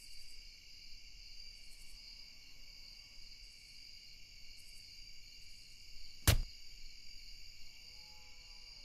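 Crickets chirring steadily, with one sharp knock about six seconds in.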